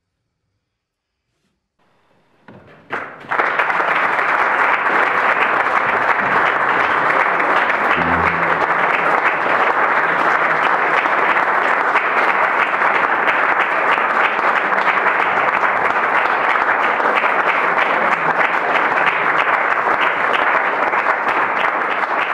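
Audience applauding. A couple of seconds of silence give way to a few scattered claps about two and a half seconds in, which quickly swell into steady, full applause.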